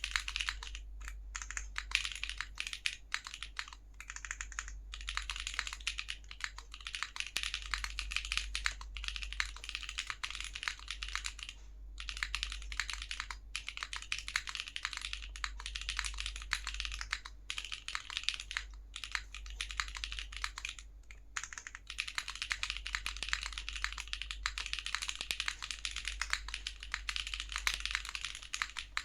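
Continuous fast typing on a mechanical keyboard with Gateron Cream Soda linear switches in a plateless, gasket-mounted ARC60 with no foam, keycaps clacking in quick runs broken by a few short pauses. A steady low hum sits underneath.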